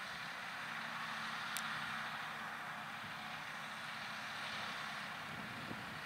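John Deere 6R 215 tractor's six-cylinder diesel engine running steadily under load while pulling a Kverneland five-furrow plough, heard as an even hiss over a faint low hum. A single sharp tick comes about one and a half seconds in.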